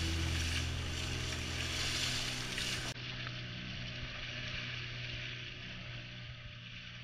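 Outrigger fishing boat under way: water rushing and splashing along the hull and outrigger, with a steady low engine hum underneath, slowly getting quieter.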